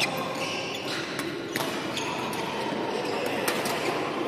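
Badminton rackets striking shuttlecocks on several courts, sharp hits at irregular intervals, over a reverberant hall din with shoes squeaking briefly on the wooden court floor.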